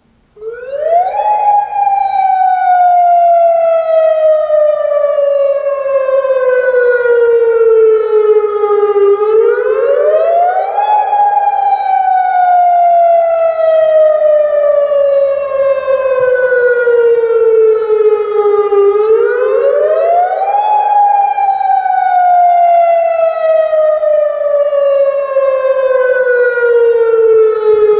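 Emergency alert alarm siren wailing: a single loud siren tone that sweeps up quickly and then glides slowly down, repeating about every nine to ten seconds, three full cycles with a fourth rise starting near the end.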